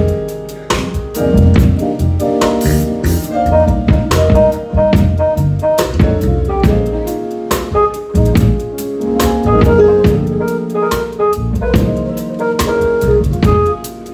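Live jazz-funk band playing: drum kit keeping a steady groove under electric guitar and keyboard chords.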